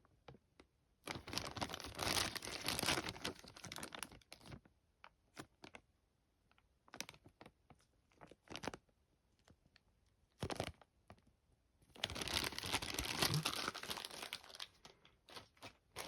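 Plastic bags of model-kit parts crinkling as they are handled, in two longer rustling spells with small clicks and taps of plastic pieces between.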